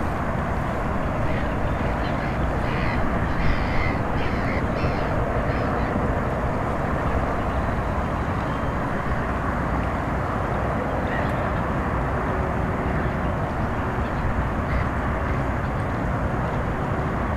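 A bird calling several times in short repeated calls a few seconds in, over a steady rushing noise.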